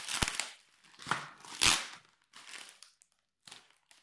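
Plastic cheese packet crinkling in short bursts as it is handled, the loudest a little under two seconds in, then a few fainter rustles.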